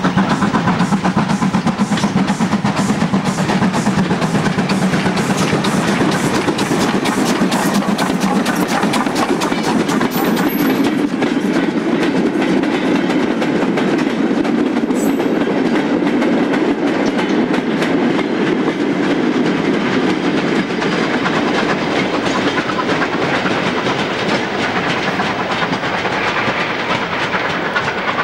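GWR 52XX class 2-8-0 tank steam locomotive No. 5224 working a goods train past at close range, with rapid regular beats through the first half, then the wagons and brake van rolling by with wheels clicking over the rail joints.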